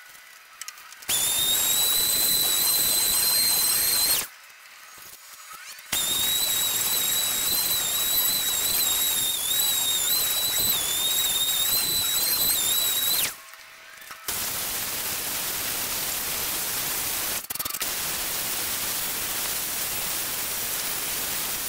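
Random orbital sander sanding an end-grain jarrah and karri cutting board: it runs with a steady high whine over a hiss, stops briefly about four seconds in, starts again and stops about 13 seconds in. A second hand-held power tool then runs on the board with a steady hiss and no whine.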